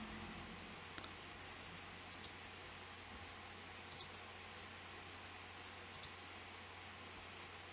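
A few faint computer mouse clicks, spaced a second or two apart, over a low steady hum.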